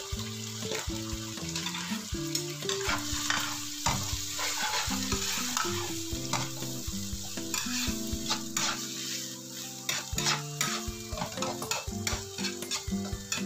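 Green beans sizzling as they stir-fry in a nonstick wok, with repeated scraping and tossing strokes as they are stirred through the seasoning.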